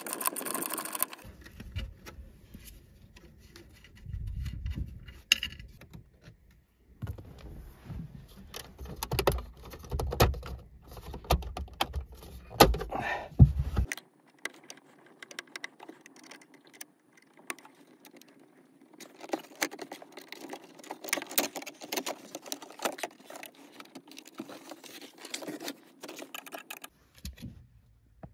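Metal tools and car parts clinking and rattling during hands-on work on a car's rear brake and handbrake, with a low rumble through the first half. In the second half, lighter clicks and rattles come from the handbrake lever mechanism being handled.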